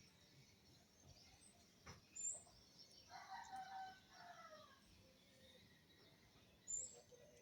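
Faint animal call lasting about a second and a half, falling in pitch at its end, in near-silent surroundings. Two brief high chirps come about two seconds in and near the end.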